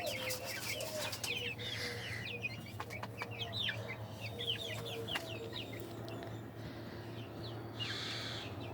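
Backyard hens clucking with many short chirpy calls, busiest in the first half.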